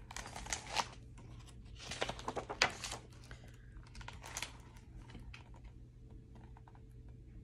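Paper pages of a picture book being turned by hand, rustling in three short bursts.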